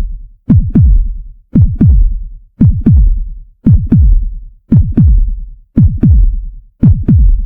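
Electronic music: a deep bass drum hitting in pairs about once a second, each hit sliding down in pitch.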